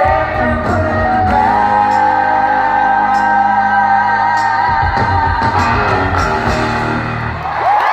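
Live country band with a woman singing lead, holding one long, wavering note from about a second in. The band's low end cuts out just before the end as the song finishes.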